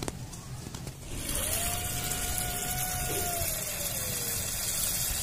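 Husked urad dal grains poured from a tin into a large aluminium basin of water, a steady hiss of grains hitting the water. The pour breaks off just before the start and begins again about a second in.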